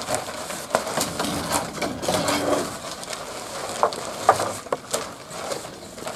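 Plastic carrier bag rustling and crinkling with irregular crackles as a hand rummages through it.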